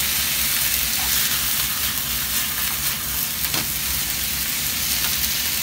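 Offal and green onions sizzling steadily in oil in a nonstick frying pan as they are stir-fried with wooden chopsticks, with a couple of light chopstick knocks against the pan.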